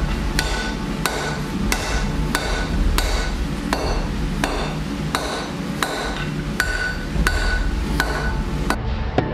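Blacksmith's hammer striking steel on an anvil in a steady rhythm, about one and a half blows a second, each blow leaving a short metallic ring. The blows stop near the end.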